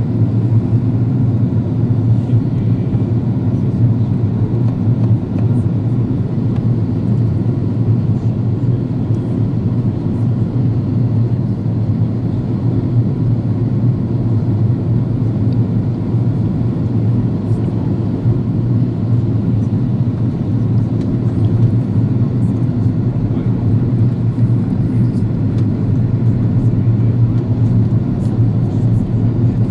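Steady cabin noise of an Airbus A330-200 in descent, heard at a window seat over the wing: a constant low drone of engines and airflow.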